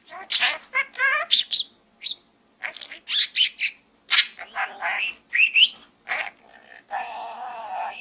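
Budgerigar chattering and warbling with its head in a hollow dried gourd: a fast run of short chirps, squeaky whistles and quick rising and falling glides, turning into a rough, scratchy stretch near the end.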